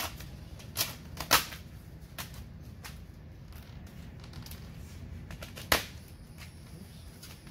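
Sharp snaps and crackles of 3M 180mC cast vinyl wrap film being stretched and pulled tight over a boat hull, a few distinct snaps, the loudest about a second in and another near six seconds, over a low steady background rumble.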